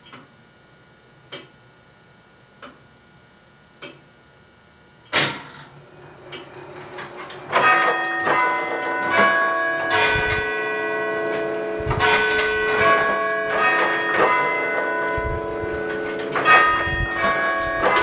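Mechanical tower clock movement ticking about once every 1.25 seconds. About five seconds in comes a loud clunk, and from about seven seconds in the tower's four bells chime a sequence of notes at several pitches, each strike ringing on into the next.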